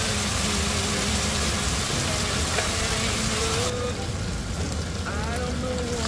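Food sizzling as it fries in a hot pan, a steady hiss that turns much quieter abruptly a little over halfway through.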